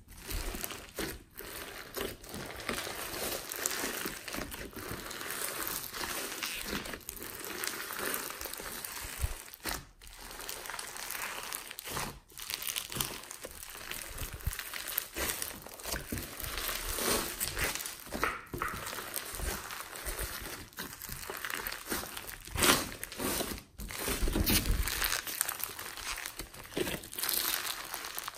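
Hands squeezing and kneading a large lump of foam-bead slime: the tiny foam beads crackle and crunch almost without pause, rising and falling with each squeeze.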